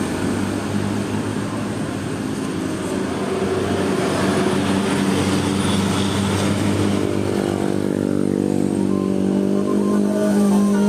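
A passing bus's engine and road noise; about seven seconds in, the rushing sound gives way to a steady pitched engine drone that rises slightly as it pulls away.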